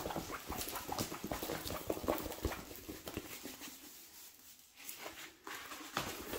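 Crinkling and rustling of a rolled diamond painting canvas and its plastic cover sheet being handled on a wooden table, with many small crackly clicks. It goes quieter for about a second past the middle, then picks up again near the end.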